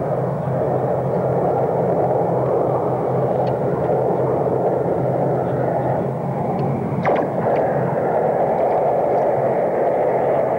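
Track-laying gantry machine running: a steady mechanical engine drone with a low hum underneath, and one sharp knock about seven seconds in.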